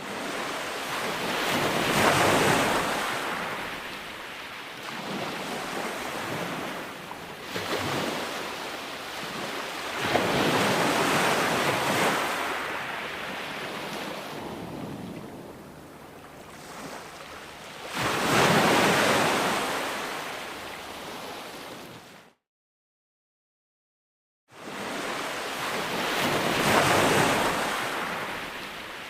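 Ocean waves breaking on a shore, each swelling to a crash and then washing back, about every eight seconds. About two-thirds of the way through, the sound cuts out completely for about two seconds before the surf returns.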